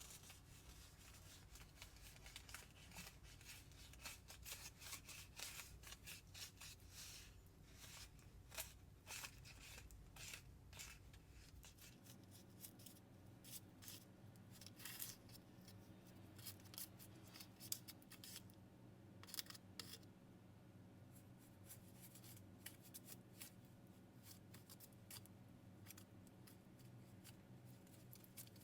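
Faint, irregular light clicks and rustles of a DIY Japanese sweets kit's plastic trays, packets and utensils being handled.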